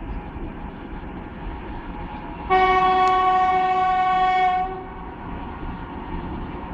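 Diesel freight locomotive running with a steady low rumble, and one steady locomotive horn blast of about two seconds starting about two and a half seconds in.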